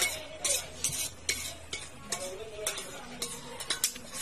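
Metal fork stirring and mashing a crumbly mixture in a cut-glass bowl, clinking and scraping against the glass in an irregular series of sharp clicks, about two a second.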